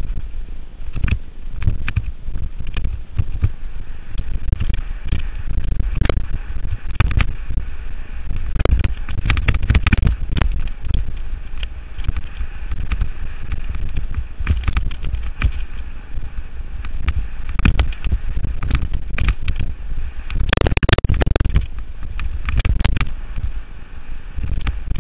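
Niner ONE 9 single-speed mountain bike ridden over a rough trail: wind rumbling on the microphone, with constant rattling and clattering from the bike over the ground. A louder burst of clatter comes about twenty seconds in.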